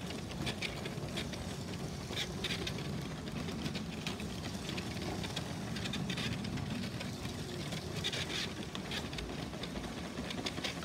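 Motorised Lego train running on plastic track: a steady low rumble with frequent light clicks.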